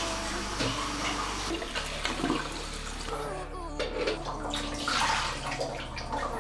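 Water running and splashing in a kitchen sink, with a few light knocks, over soft background pop music.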